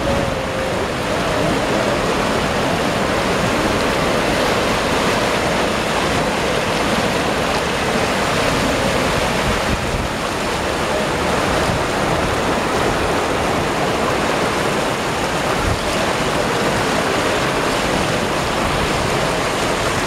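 Fast-flowing Ganges river water churning in turbulent waves and breaking against the stone embankment: a steady, unbroken rush of water.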